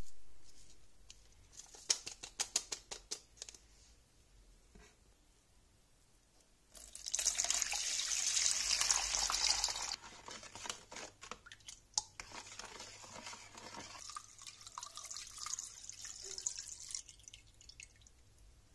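A metal spoon clinking rapidly against a bowl while stirring sugar and lemon zest. Then water is poured into the bowl for about three seconds, followed by quieter stirring of the liquid with occasional spoon ticks.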